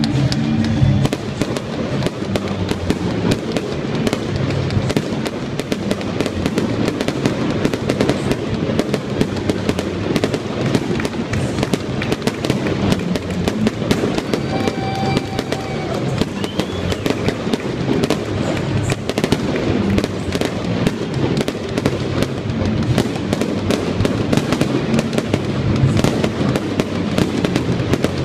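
Fireworks display: a dense, unbroken run of bangs and crackles from shells and rockets going off in quick succession.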